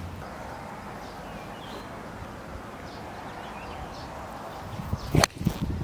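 Sharp single click of a golf club striking the ball off the tee, about five seconds in, after a few seconds of open-air hiss with faint bird chirps.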